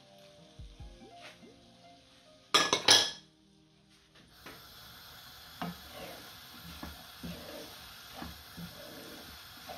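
Faint background music, then a brief loud double clatter about two and a half seconds in. From about halfway, a wooden spoon stirs chicken and vegetables in a non-stick wok over a steady sizzle, knocking against the pan every second or so.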